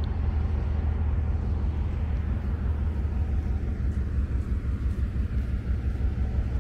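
Diesel locomotive idling while the train stands still: a steady low rumble with a constant hum.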